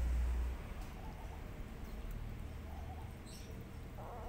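Kittens mewing faintly, a few short squeaky calls, with a low rumble of wind on the microphone in the first half-second.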